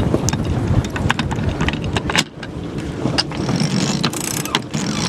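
Sheet winch on a sailing yacht being cranked with a winch handle, its pawls clicking in short irregular runs, over strong wind rumbling on the microphone.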